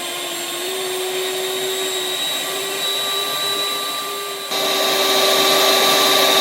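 Electric hand mixer running steadily with a constant motor whine while beating cake batter, getting louder about four and a half seconds in.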